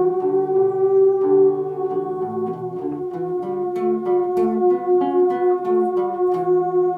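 Theremin holding one long steady note over an electric or acoustic guitar picking a moving line of shorter, lower notes.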